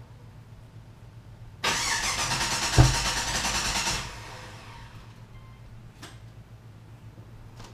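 2006 Pontiac GTO's swapped, cammed LQ9 V8 cranking on the starter for about two seconds, with one loud low thump partway through, then stopping without staying running: the hard-start problem that tuning, a new ignition switch and tumbler, and a reprogrammed key have not cured. Two faint clicks follow.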